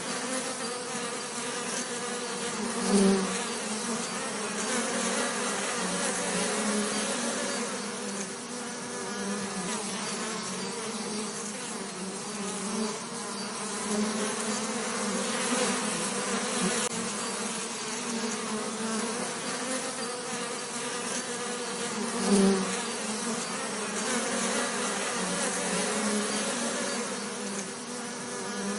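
Bees buzzing in a steady, continuous drone, with a brief louder swell twice, as if a bee passes close.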